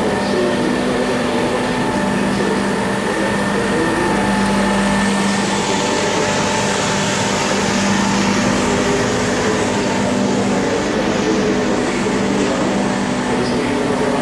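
Tomcat MiniMag walk-behind floor scrubber-dryer running as it scrubs a wet floor: its brush and vacuum motors make a steady hum, with a low held tone under a higher whine.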